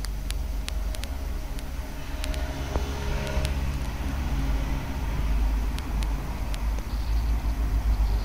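Kittens chewing chicken bones: scattered sharp crunching clicks over a steady low rumble that grows louder in the second half.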